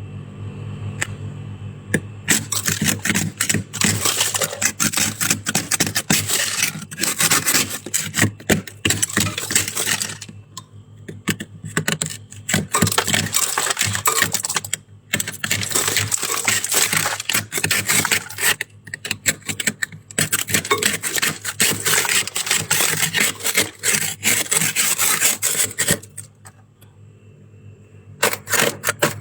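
Close-up crunching of soft, crispy shaved freezer frost being chewed: dense crisp crackling in bouts, broken by short pauses.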